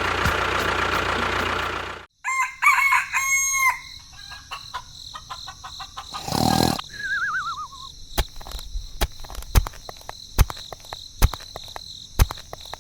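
A loud steady sound cuts off abruptly about two seconds in. A rooster then crows in a few short pitched calls, followed by a brief rush of noise, a falling warbling tone and scattered sharp clicks.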